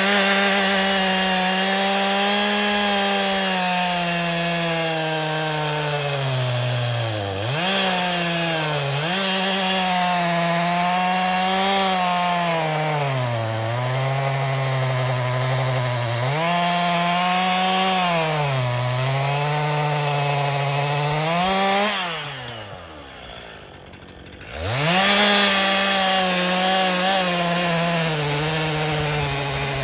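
Stihl MS261 C two-stroke chainsaw at full throttle bucking a large red maple trunk into rounds, its engine note sagging several times as the chain bites into the wood. About three quarters through it drops back to idle, then revs up again and goes back into the cut.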